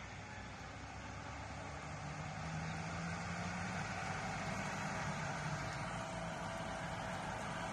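Road traffic: a car and a small box truck driving toward the microphone, their engine hum and tyre noise growing steadily louder as they approach.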